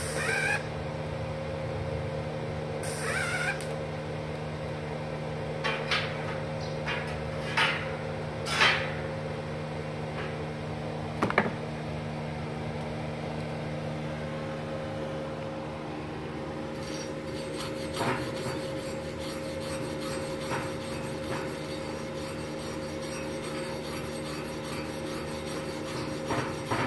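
Steady hum of the idling MIG welding machine, with a few separate knocks and clanks in the first half. From about two-thirds of the way through, a hand wire brush scrubs the fresh weld beads on a steel plate in quick rasping strokes.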